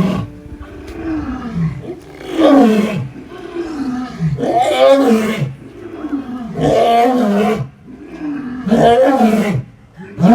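Lion roaring in a bout: about five deep, loud calls roughly two seconds apart, each falling in pitch.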